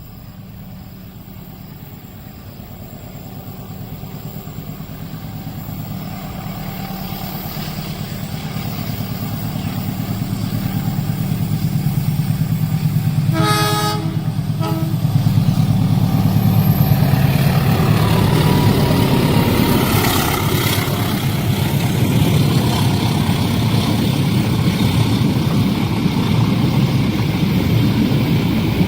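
A train approaching, growing steadily louder, with a short horn blast about 13 seconds in. It then passes close by, its engine and wheels rumbling on the rails.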